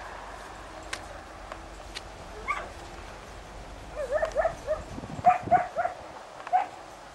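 A dog barking: one bark about two and a half seconds in, then a quick run of barks from about four seconds in, the last near the end.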